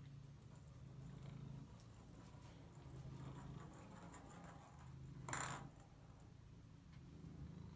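Longhaired domestic cat purring faintly, the low purr coming and going in stretches every couple of seconds, with one short scuffling clatter about five seconds in.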